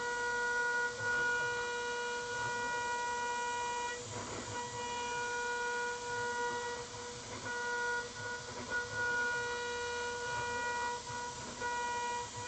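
CNC 6040 router spindle running at 28,000 rpm while its end mill cuts aluminium: a steady high whine with several overtones. Over it, the cutting noise rises and falls as the tool works along its path, and the whine briefly drops out a few times.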